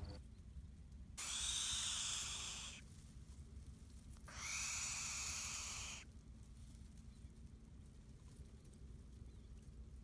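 American bittern chick hissing twice, each hiss lasting about a second and a half, with a pause between: the defensive hiss of a nestling at an intruder.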